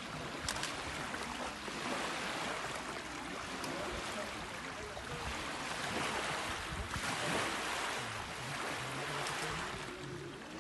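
Rushing noise of wind and lake water lapping at the shore, swelling and fading, loudest a little after the middle.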